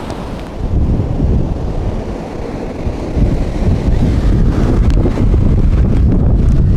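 Wind buffeting the microphone in a loud low rumble over the wash of ocean surf breaking on the beach, growing louder about three seconds in.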